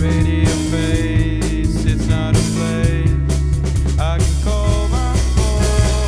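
Shoegaze rock band recording: electric guitars over a steady bass line and drum kit, with a lead line sliding in pitch about four seconds in.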